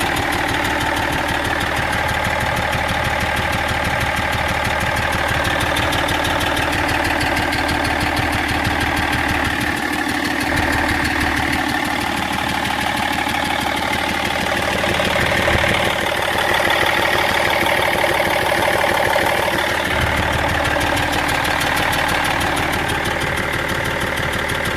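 BMW E46 330d straight-six diesel engine idling steadily, with a fast, even clatter. The engine has an abnormal noise that no garage has managed to trace.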